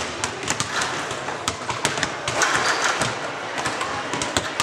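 Basketball game sounds on a hardwood gym court: a ball bouncing and players' footfalls, heard as irregular sharp knocks over a steady hum of room noise.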